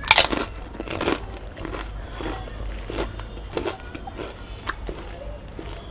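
A person biting into crisp food and chewing it with the mouth. Two loud crunching bites come in the first second or so, followed by quieter crunches as it is chewed.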